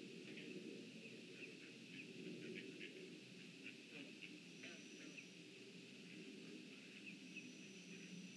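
Faint outdoor pond ambience: a low steady hum with scattered short high bird chirps, and a thin high steady whine that comes twice in the second half, the second time near the end.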